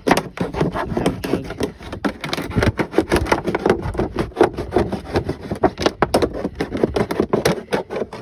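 A multi-tool knife blade sawing through a thin plastic milk jug: a rapid, irregular run of scraping and crackling strokes as the blade cuts and the plastic flexes.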